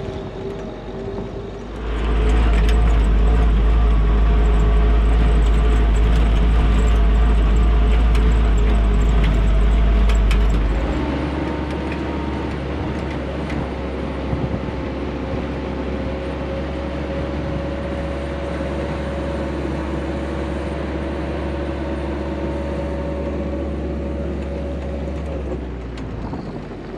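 A Willys flat fender Jeep's four-cylinder engine droning steadily while driving on a mountain trail. A heavy low rumble comes in about two seconds in and drops away about ten seconds later, and the engine note then settles at a different steady pitch.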